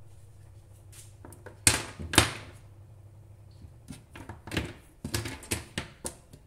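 Broken washing-machine suspension rods, thin steel rods with coil-spring dampers, handled and set down on a wooden tabletop. There are two loud thunks about two seconds in, then a run of lighter knocks and clinks.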